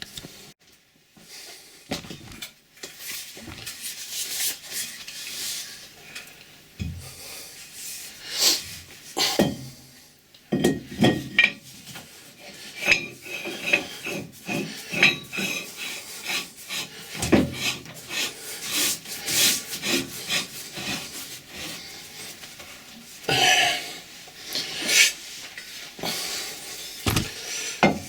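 Irregular metal-on-metal scraping, rubbing and clinking as a lathe faceplate is handled and fitted back onto the Colchester lathe's spindle nose.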